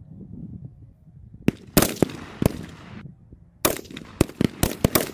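Rifle gunfire on a small arms range: a few sharp cracks starting about a second and a half in, a short pause, then a quicker irregular string of shots, each trailing off in a short echo.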